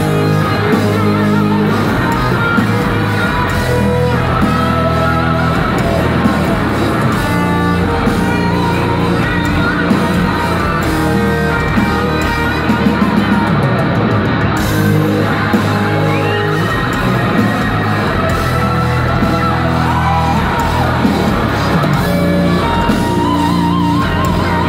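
A rock band playing live at full volume in a large hall: distorted electric guitars, bass and a drum kit, with a wavering lead guitar line near the end.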